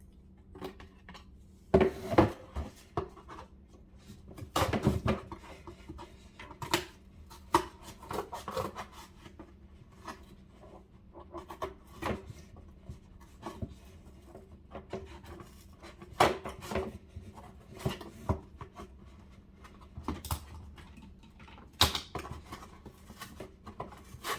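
A hole being cut in a cardboard shoe box: irregular knocks, taps and scraping as the cardboard is cut and the box is handled, with a few louder knocks along the way.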